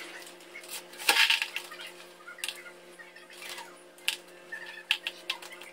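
Dry spaghetti sticks and their plastic packet being handled and slid into a tall plastic storage container: a string of separate clicks, rattles and crinkles, the loudest about a second in.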